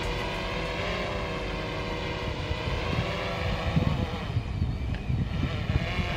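DJI quadcopter drone hovering low, its propellers giving a steady whine of several tones as it is brought down and caught by hand. A gusty low rumble of wind on the microphone grows about halfway through.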